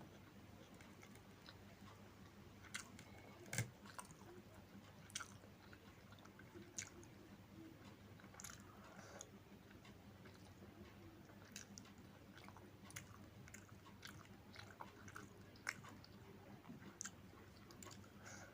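Quiet chewing and eating sounds of a person eating a rice meal: soft mouth smacks and sharp little clicks at irregular moments, over a faint steady hum.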